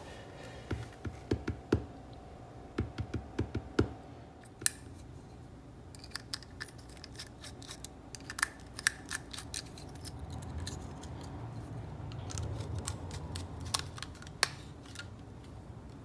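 Scattered small plastic clicks and taps as hands handle a panel pilot lamp, a screwdriver voltage tester and the hookup wires, quick clicks in the first few seconds, then sparser single clicks over a faint low rumble.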